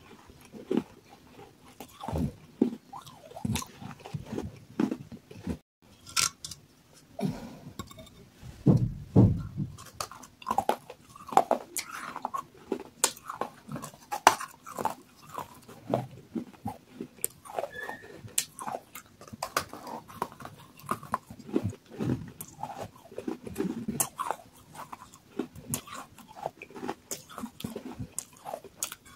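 Water-soaked baked clay pot pieces bitten and chewed close to the microphone: irregular dry crunches and clicks one after another, with a short break about six seconds in.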